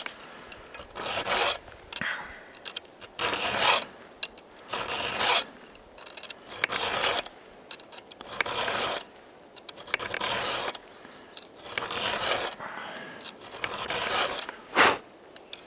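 Round file rasping across a chainsaw chain's cutter tooth in about nine slow push strokes, sharpening out a slightly chipped edge. A single sharp click comes near the end.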